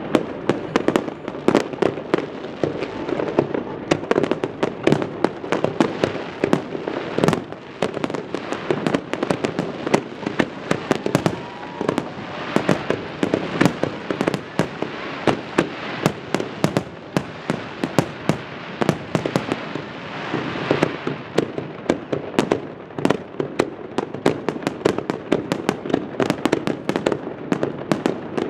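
Fireworks display: dense, irregular bangs and crackling shell bursts, several a second, over a continuous rumble from the ongoing barrage.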